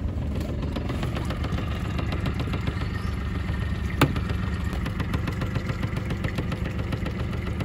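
Yamaha four-stroke 40 hp outboard motor idling steadily just after starting on the first try, running smoothly. A single sharp click sounds about four seconds in.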